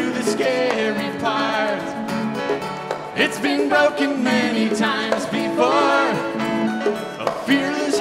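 Live band music: strummed acoustic guitars with bass and drums, and a singing voice carrying the melody.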